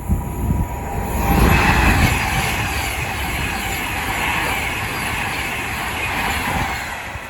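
Train running on the track: a rush of wheel and rail noise that swells about a second in, holds steady, and eases off near the end.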